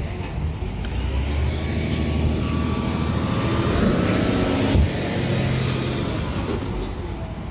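Peterbilt 520 McNeilus ZR side-loader garbage truck driving past: its engine rumble, with a steady high whine over it, builds to a peak about four to five seconds in, then eases as the truck pulls away. A single knock sounds just before five seconds in.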